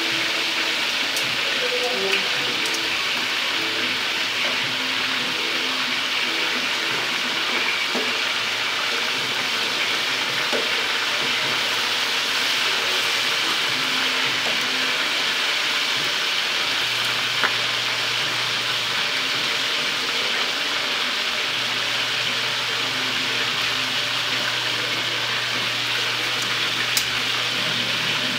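Chicken pieces frying in hot oil in a shallow pan, with a steady sizzle and a few faint clicks.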